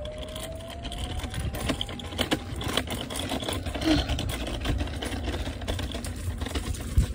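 A small dirt bike riding along a concrete sidewalk: the motor whines, its pitch rising over the first couple of seconds, over a constant low rumble with scattered knocks as it rolls over the pavement.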